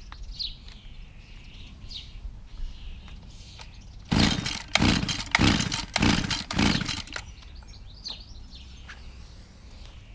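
A petrol strimmer's small engine being pull-started: five quick, loud pulls of the recoil starter cord in about three seconds, the engine cranking over with each pull but not settling into running.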